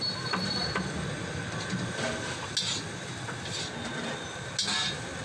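Metal ladle clinking and scraping against a wok as noodles are stir-fried and tossed, with a few light clicks early and two louder scrapes, over a steady rumble and hiss of the burner flame and the hot wok.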